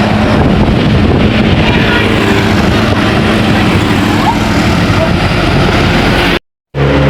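Large bus diesel engine running as buses pass close by, with heavy road and wind noise and no horn. The sound cuts out for a moment about six and a half seconds in, then a different engine's hum starts.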